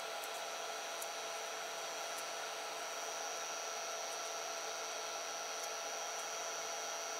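Steady fan whir with a high-pitched whine and a lower hum, with a few faint ticks from the plastic part being handled.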